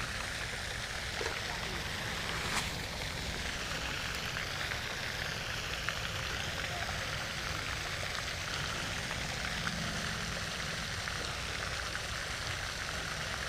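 Steady splashing rush of water from a pond fountain, with one faint click about two and a half seconds in.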